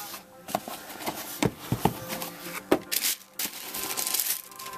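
Handling noise as leather turf soccer shoes are lifted out of cardboard shoe boxes: irregular rustling and crinkling of the paper packing, with small knocks against the cardboard.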